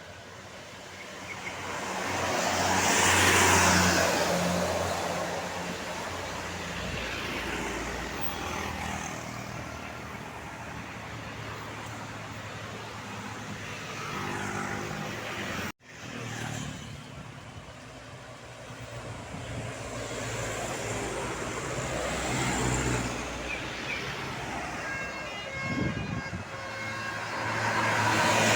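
Buses and other traffic driving past on a road, each passing with a rising and falling rush of engine and tyre noise. The loudest pass-bys come about three seconds in and again near the end, and the sound breaks off abruptly about halfway through.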